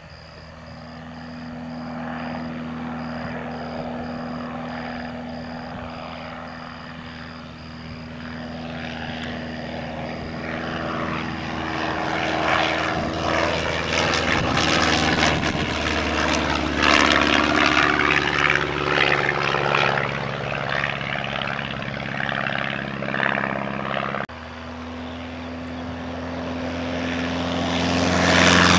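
Continental A-65 flat-four air-cooled engine and propeller of a light airplane flying past at steady power. The sound grows steadily louder as the plane approaches and is loudest and raspiest mid-way. It drops abruptly about three-quarters through, then builds again to its loudest on a low pass.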